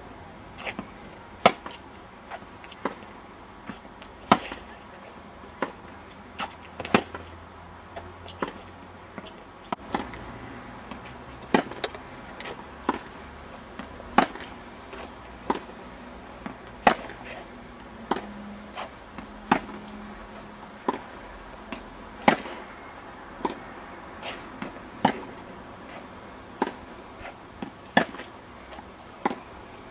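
Tennis balls being struck with rackets in a practice rally: sharp pops about every second and a half, with softer knocks in between.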